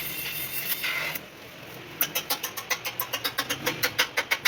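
Honda CD 70 motorcycle's single-cylinder four-stroke engine running through its silencer. A fast run of sharp exhaust pulses, about eight a second and growing louder, follows a second of steady hiss.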